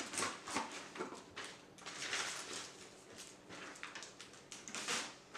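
Paper sheets rustling and crinkling as they are handled, in a series of short, irregular swishes.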